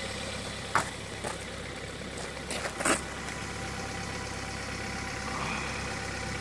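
A motor-vehicle engine idling steadily, with a few sharp clicks; the loudest click comes about three seconds in.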